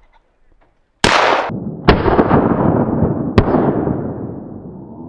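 Shotgun shots at flying pheasants: three sharp blasts about one, two and three and a half seconds in, each leaving a long rolling echo that fades slowly.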